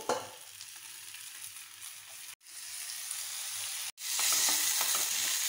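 Washed, drained biryani rice sizzling as it fries in a hot pan. The sizzle cuts out briefly twice and is louder over the last second and a half.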